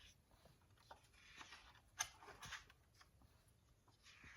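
A page of a picture book being turned: a faint paper rustle with one sharp click about two seconds in.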